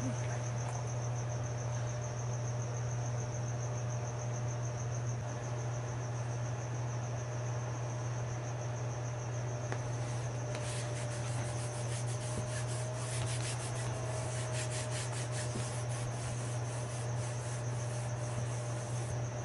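Hands pressing and smoothing a sheet of patterned paper onto a sticky Cricut cutting mat, heard as a run of soft rubbing strokes from about halfway in. Under it runs a steady low hum and a continuous high-pitched trill.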